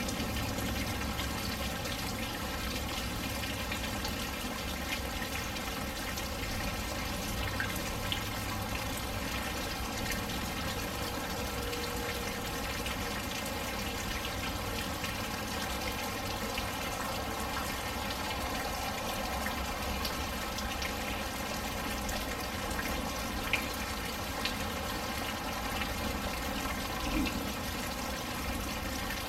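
Steady rain falling and splashing, with a few sharper drop hits now and then.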